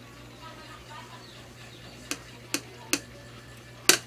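Plastic ballpoint pens set down onto a tabletop: three sharp clicks a little over two seconds in, then a louder click near the end.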